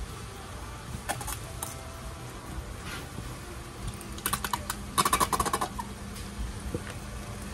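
Squeeze bottle of ketchup spluttering as ketchup and air are forced out of the nozzle. It gives a few clicks about a second in, then two bursts of rapid crackling clicks past the middle.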